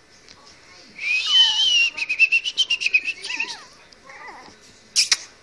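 Chihuahua puppy whining in play: a high-pitched whine about a second in that rises slightly, then breaks into a quick run of short whimpers, about eight a second, followed by a few softer, wavering whimpers. A sharp click near the end.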